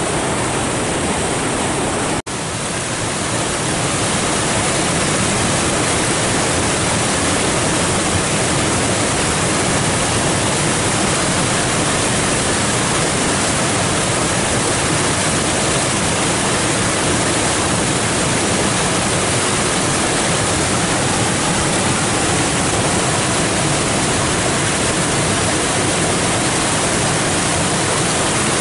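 Flood-swollen creek rushing in whitewater over limestone ledges and a low waterfall: a loud, steady rush of water. It drops out for an instant about two seconds in, where the recording cuts, then carries on as before.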